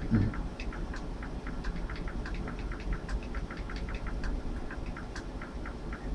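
Cats crunching dry kibble: a quick, fairly even run of small crisp clicks, about five a second, over a low steady hum.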